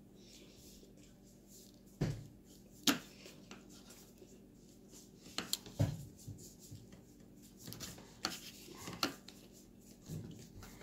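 Scattered sharp clicks and light knocks of small hard parts being handled on a work surface while working on an opened iPhone 6 Plus, spaced a second or more apart.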